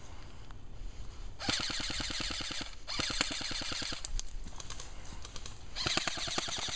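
Airsoft electric gun firing full-auto: three bursts of rapid, evenly spaced shots, about twelve a second, each lasting about a second, the last near the end.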